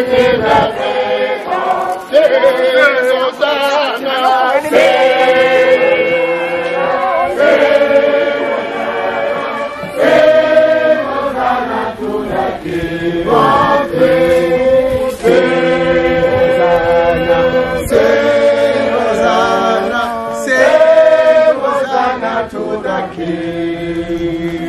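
A group of voices singing a hymn together in long held notes that step from pitch to pitch every second or two.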